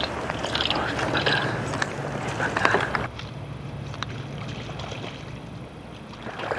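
Water splashing and sloshing close to the microphone, with short knocks. About three seconds in it drops to a quieter rustle over a low steady hum.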